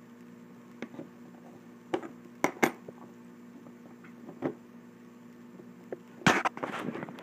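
Metal tools clinking and knocking irregularly as a steel socket is handled and fitted onto the square drive of a 3D-printed plastic wrench, the loudest knock about six seconds in, over a faint steady hum.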